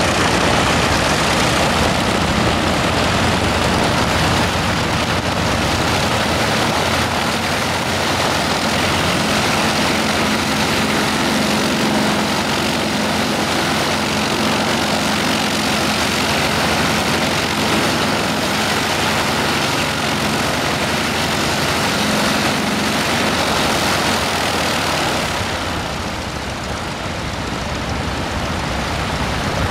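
Propeller-driven vintage biplanes running at taxi power, a loud steady engine-and-propeller drone with a low hum that eases off a little near the end.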